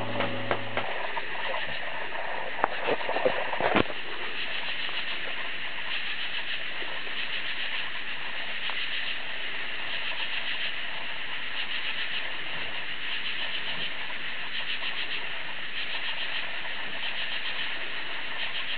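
Night chorus of katydids and frogs: a steady band of high, quickly pulsing rasping calls. A few sharp clicks stand out in the first four seconds.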